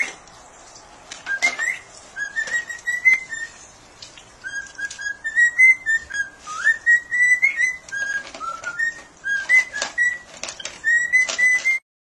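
Cockatiel whistling a song of short notes, mostly at one pitch and several gliding upward, with occasional sharp crunches from a dog eating dry kibble beside it. The sound cuts off suddenly near the end.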